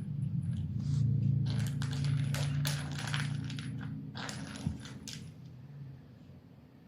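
Metallic jingling and rattling in quick, irregular bursts, like a small bell toy being batted about, over a low steady hum; it dies away over the last second or two.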